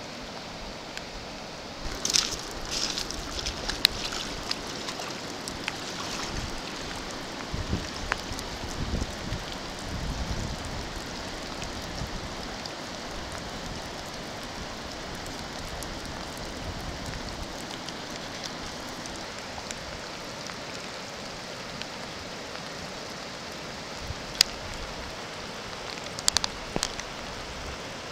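Steady hiss of water, with a scatter of sharp clicks about two seconds in and again near the end.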